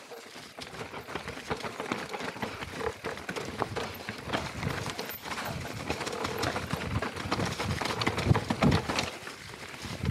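Mountain bike descending fast over a rocky, leaf-littered trail: tyres crunching over stones and the bike rattling and clattering in a constant stream of knocks, loudest about eight to nine seconds in.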